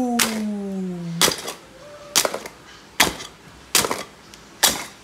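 Edge of a plate chopping through a roast suckling pig's crisp crackling skin: six sharp cracks, about one a second.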